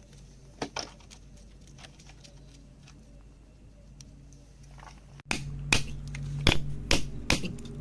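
Quiet with a couple of faint clicks, then an abrupt jump about five seconds in to a run of sharp knocks, about two to three a second, over a steady low hum.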